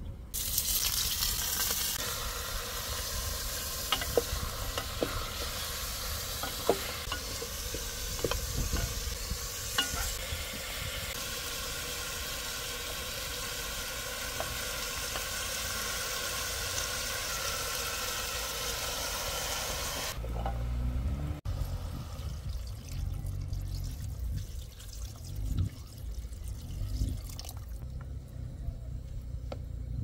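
Meat frying in a pot on a camp stove, with a steady sizzle and the sharp clicks and scrapes of a wooden spatula stirring, as chopped onions go in. About two-thirds of the way through the sizzle cuts off suddenly, leaving a quieter low rumble and a few knocks.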